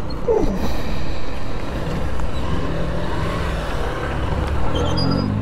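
Motorcycle running while riding in traffic, a steady engine and road noise. A short falling tone comes about half a second in, and a few brief pitched sounds come near the end.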